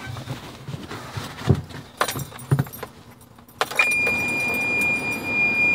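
Keys jangling and clicking at the Mitsubishi box truck's ignition. Nearly four seconds in, a steady high-pitched dashboard warning tone comes on with a low steady hum as the ignition is switched on ahead of the cold start.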